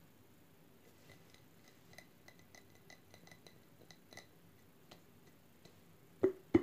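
Light, irregular taps and clinks on a glass candle jar, each with a brief glassy ring, followed near the end by two loud knocks as the jar is handled.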